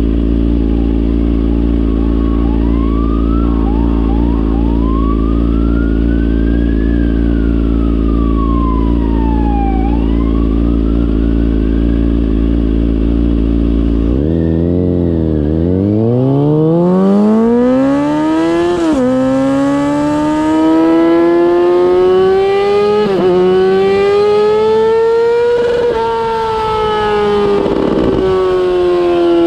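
Kawasaki ZX-6R inline-four through a MIVV GP exhaust, idling steadily while a siren wails in the background. About halfway through, the bike pulls away: the revs climb hard, drop at a gear change, rise more gently in the next gear, then ease off.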